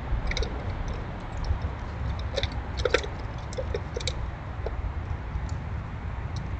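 Squirrels cracking and chewing seeds: scattered short crisp clicks, bunched together about halfway through, over a steady low rumble.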